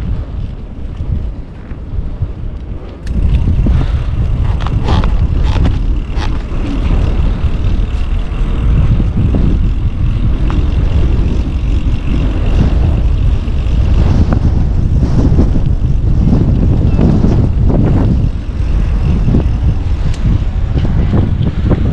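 Wind buffeting the microphone on a fast downhill bicycle ride, with the bike clicking and rattling over the road. The rush gets much louder about three seconds in.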